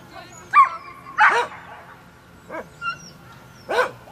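A dog barking excitedly: a high rising yelp about half a second in, then several sharp barks.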